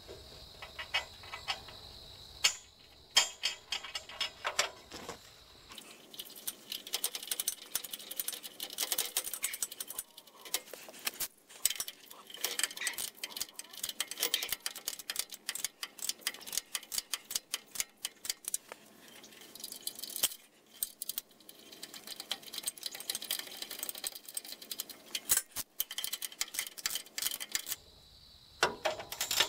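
Ratchet wrench clicking in quick runs, with clinks of steel on steel, as bolts are run into a log turner bracket on a sawmill's galvanized steel frame. The clicks are scattered for the first few seconds, then come densely.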